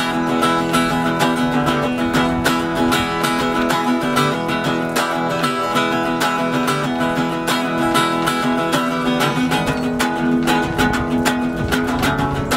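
Acoustic guitar strummed in a steady, even rhythm, ringing chords.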